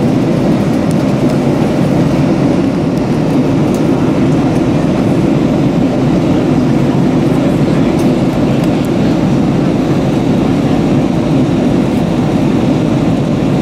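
Steady cabin noise inside an Airbus A321 in flight: a constant low rumble of engines and rushing air.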